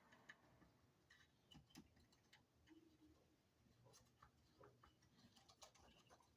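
Near silence, with faint, irregular small clicks and taps of parts being handled and tucked into place.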